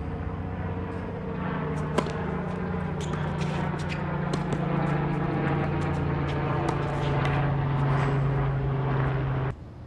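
A steady low machine hum with scattered clicks, cutting off suddenly near the end.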